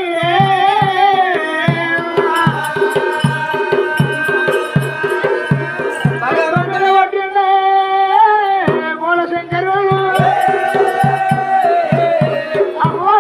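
Oggu Katha folk ballad singing: a singer holds long, gliding notes over steady dhol drum beats at about two to three strokes a second, with bursts of metallic jingling.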